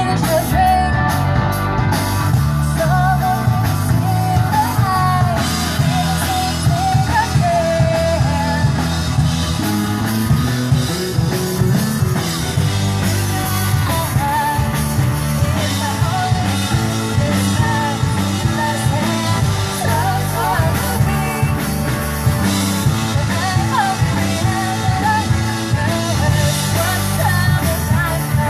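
Rock band playing live with a singer over guitar, bass and drums during a sound check.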